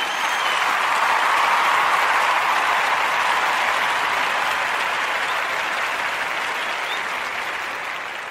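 Crowd applause that swells up over the first second, holds steady, and slowly dies away near the end.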